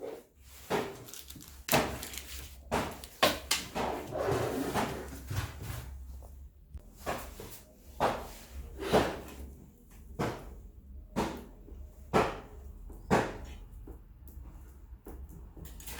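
Repeated knocks and clunks of PC hardware being handled and set down, roughly one a second: a computer case and power supply being moved into place, with a stretch of rustling handling noise early on.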